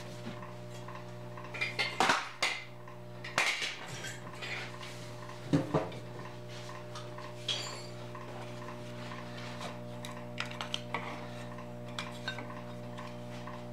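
Metal clanking and clinking as the sheet metal, tools and MIG gun are handled on a steel welding table: a few sharp clanks in the first six seconds, lighter clinks near the end. A steady electrical hum runs underneath.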